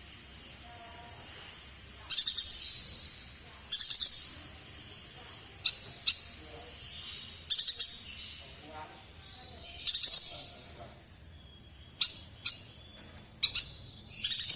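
A yuhina singing in short, loud, high-pitched bursts of rapid notes, the 'nembak' delivery bird-keepers prize, starting about two seconds in and repeating every one to two seconds, closer together near the end.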